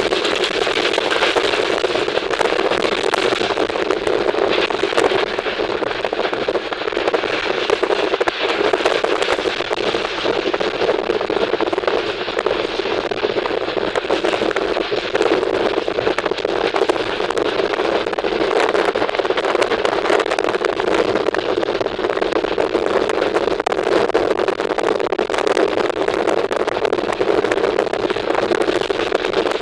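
Steady, dense crackling rush of a moving train in motion.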